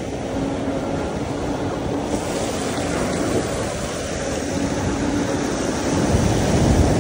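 Wind rushing over the microphone of a moving electric bike, with ocean surf washing behind it and a faint steady hum under both. The wind rumble grows louder about six seconds in.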